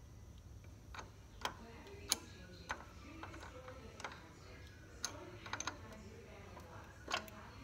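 Light, irregular clicks and taps from hands handling a battery-charger wiring harness and its plastic fuse holder at a tractor battery terminal, about one a second with a quick run of several clicks a little past the middle.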